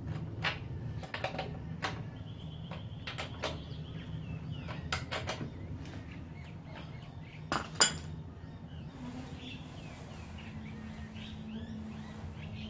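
Steel spanners clinking and tapping on a motorcycle's rear-axle chain adjusters while the chain tension is set: a string of sharp metal clinks, loudest about eight seconds in, thinning out toward the end.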